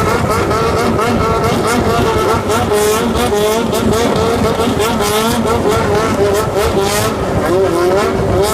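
Engines revving over and over, their pitch rising and falling in quick repeated swells, several pitches overlapping, over a low rumble.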